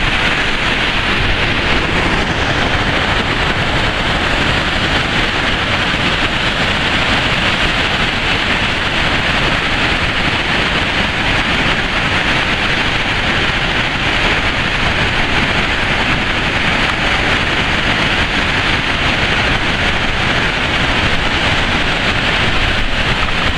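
Huka Falls: a large volume of Lake Taupo's water rushing through a narrow gorge, a loud, steady roar of white water that does not let up.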